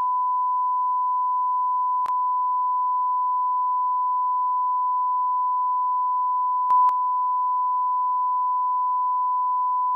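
Steady, unbroken electronic beep at one pitch, a flatline-style sound effect marking a death.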